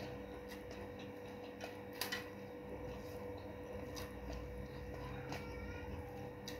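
Hand-eating sounds: fingers gathering rice on a metal plate, with a few faint clicks and ticks scattered through, over a steady low hum.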